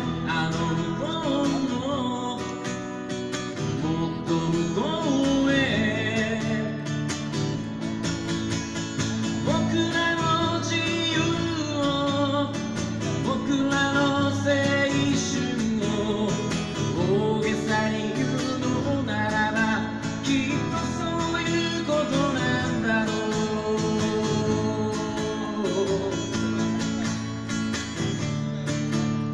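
Live acoustic guitar strumming with a man singing over it, amplified through a PA speaker.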